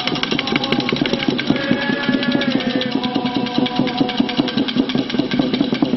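Matraca, a wooden board with two metal hinged knockers, swung so the knockers strike the board in a fast, even clatter of about seven knocks a second.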